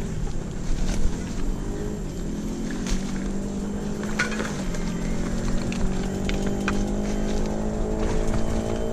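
Downhill mountain bike coasting over a rough dirt trail: the rear hub's freewheel gives a steady buzz whose pitch drifts up and down with speed, over tyre rumble, with scattered knocks from bumps and stones.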